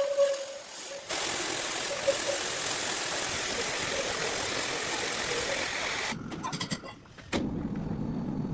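Industrial horizontal bandsaw mill running steadily through hardwood, a dense hissing machine noise. It changes abruptly about a second in and again near six seconds, then settles into a lower hum.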